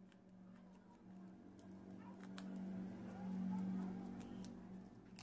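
Small screwdriver turning screws out of a plastic speaker housing: a few light clicks and scrapes over a steady low hum that swells about three seconds in.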